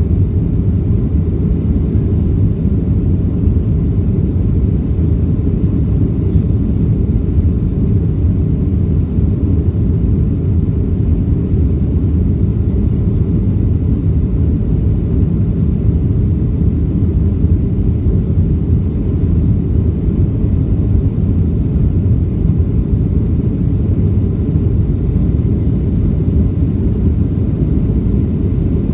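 Boeing 737-800 jet engines (CFM56-7B turbofans) making a steady, loud low rumble that neither rises nor falls.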